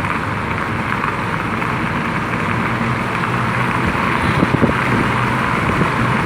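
A car running, heard from inside the cabin: a steady low engine hum under an even hiss of road and air noise, with a few faint knocks about four seconds in.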